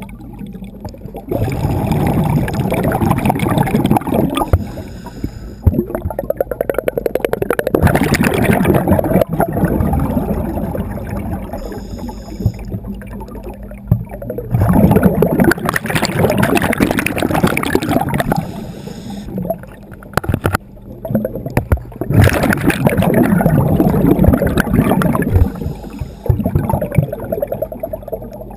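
Scuba diver's exhaled bubbles rushing and crackling past an underwater camera, in four long bursts about every six to seven seconds, with quieter gaps between breaths.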